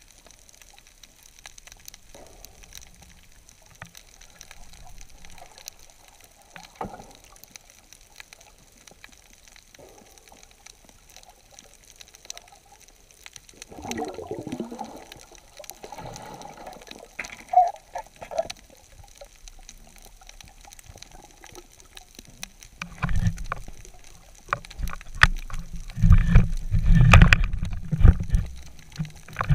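Underwater sound heard through a camera's waterproof housing: scattered faint clicks and a gurgling murmur of water. From about two-thirds of the way in come heavy, muffled low rumbles and bumps as water moves around the housing.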